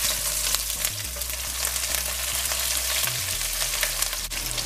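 Small Guyana black shrimps frying in hot oil in a nonstick wok: a steady sizzle full of small crackles, stirred with a wooden spatula.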